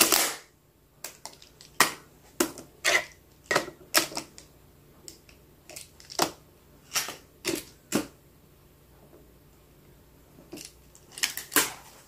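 Translucent plastic magnetic building tiles clicking and clacking as they are snapped onto a tower and handled: irregular sharp clicks, one every half second to a second, with a pause of about two seconds near the end.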